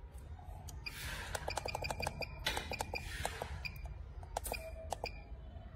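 Buttons being pressed on a Smarttool 2 handheld diagnostic scan tool: a quick run of clicks, then a few single clicks, with brief rustling as it is handled.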